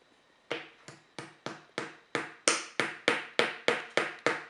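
Child's toy hammer tapping a nail through a shape into the board: a steady run of sharp taps, about three a second, starting about half a second in and getting louder.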